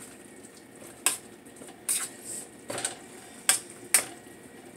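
Utensil clinking against cookware as barbecue sauce is added to the meat and stirred: about five sharp clinks spread over a few seconds.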